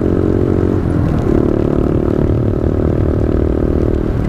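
Honda Grom's 125 cc single-cylinder engine running under way, heard through a helmet-mounted mic with low wind rumble; its note dips briefly about a second in, then holds steady.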